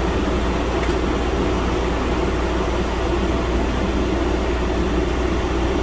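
Steady whir of computer cooling fans, with a low hum underneath.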